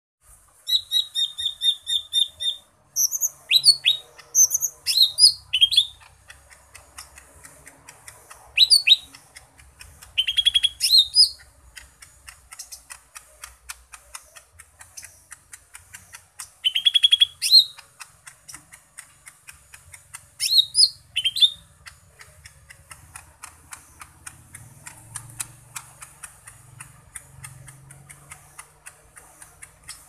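Caged green leafbird (cucak ijo mini) singing in loud bursts of whistled notes with quick downward sweeps, opening with a buzzy rattle; the song is packed with mimicked calls ('isian'). A faint, rapid ticking runs between the phrases.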